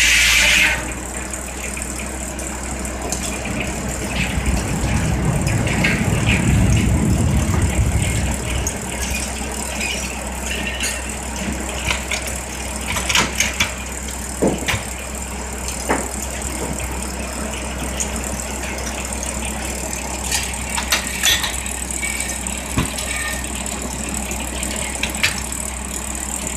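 Sawmill running between cuts: the saw's cutting noise stops just under a second in, leaving the mill machinery's steady low hum with scattered clanks and rattles. A louder low rumble comes around the middle.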